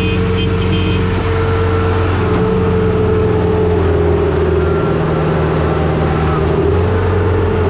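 Tractor diesel engine running steadily at working speed, its pitch wavering up and down a little.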